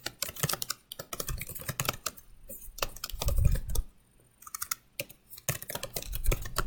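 Rapid typing on a computer keyboard, key clicks coming in quick runs with a short pause a little past halfway. A dull low thump sounds about halfway through.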